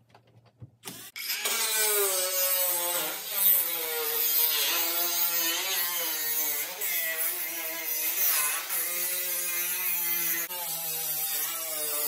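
Cordless angle grinder with a cut-off wheel cutting through a corrugated metal roofing panel, starting about a second in: a loud motor whine over a harsh cutting hiss, its pitch wavering as the wheel bites into the metal.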